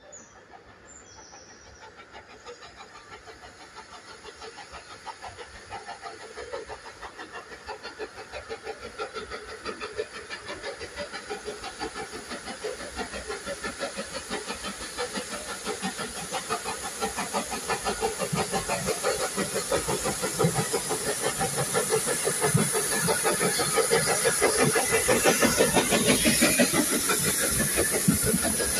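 Steam locomotive No 4 Loch, a Beyer Peacock 2-4-0 tank engine, working a narrow-gauge train with a steady beat of chuffing exhaust and a hiss of steam. It grows steadily louder as the engine approaches and its carriages pass close by near the end.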